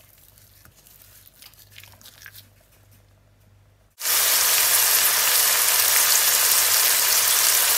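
Curry-marinated chicken breasts frying in olive oil in a stainless steel pan. After about four faint seconds, a loud, steady sizzle starts abruptly and keeps on.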